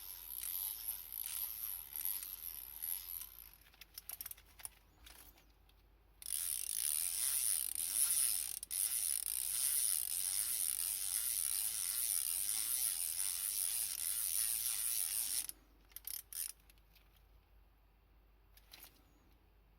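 Hand ratchet's pawl clicking as it is turned back and forth: a run of clicks, a few scattered ones, then a long stretch of rapid, continuous ratcheting that stops suddenly, followed by a few last clicks.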